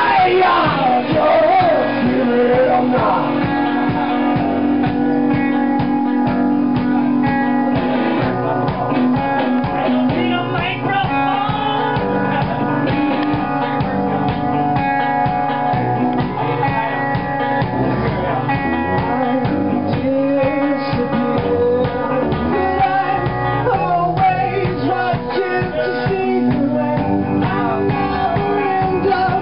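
A band playing live in a small room: guitar over a steady drum beat, with a singing voice.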